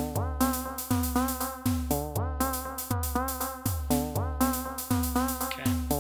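Electronic loop from a Max/MSP patch: a synthesized analogue-style drum kit, with kick, snare and hi-hats in Euclidean patterns, under short pulse-wave synth notes that scoop up in pitch as each begins, over a held low tone. The snare's decay is being sequenced to alternate between short and long.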